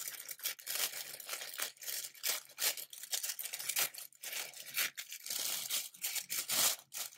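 White tissue paper being handled, unfolded and torn open at its sticker seal: a busy run of irregular crinkles, rustles and crackles.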